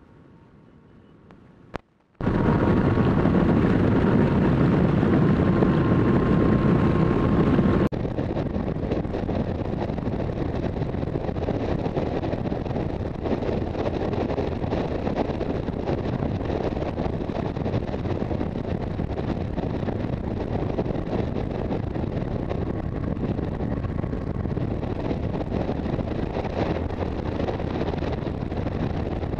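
Wind rushing over a helmet-mounted camera on a Yamaha FJR1300 motorcycle at road speed, mixed with road and engine noise. Nearly quiet at first, the noise starts suddenly about two seconds in and drops a little about eight seconds in, then holds steady.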